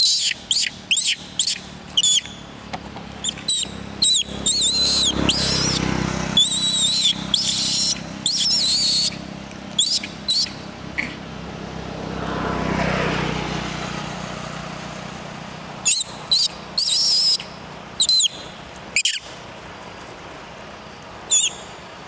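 Young long-tailed macaques giving short, high-pitched squealing cries in quick runs, thickest over the first nine seconds and returning in a few bursts later. Midway a vehicle passes on the road, its noise swelling and fading.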